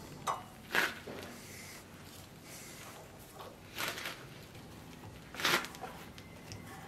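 A few short, scattered scrapes and clicks of metal knife parts and tools being handled at a bench vise.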